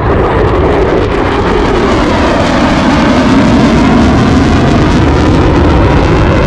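Boeing EA-18G Growler's twin turbofan jet engines roaring loudly and steadily during a flyby, the tone of the roar sweeping slowly as the jet moves.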